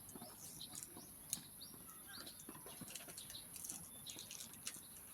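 Faint outdoor background with small birds chirping, plus a few light clicks, one sharper than the rest about a second and a half in.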